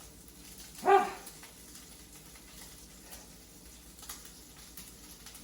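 Chicken nuggets frying in butter in a pan, a faint steady sizzle. About a second in there is a short, loud voice-like sound, and a few faint clicks come later.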